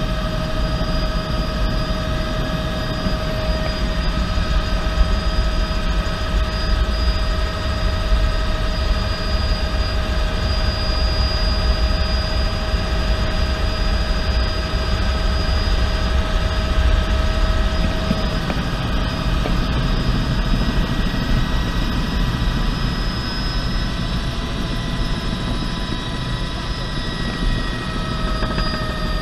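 Bell 206B3 JetRanger in flight heard from inside the cabin: the Allison 250 turboshaft's steady whine sits over the deep thrum of the main rotor and a rush of wind. The whine's pitch shifts slightly about two-thirds of the way through.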